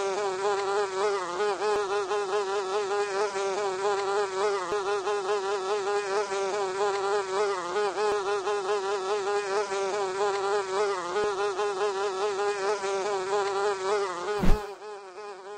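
A fly buzzing steadily, its pitch wavering slightly. It is cut off near the end by a brief loud thump, after which it is much quieter.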